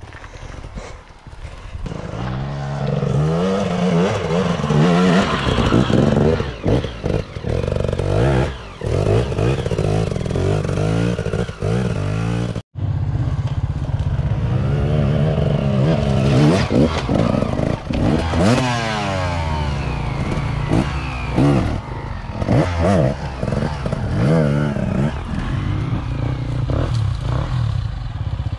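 Enduro dirt bike engines revving hard, their pitch repeatedly rising and falling as the bikes claw up a steep rocky slope. The sound cuts out for an instant around the middle.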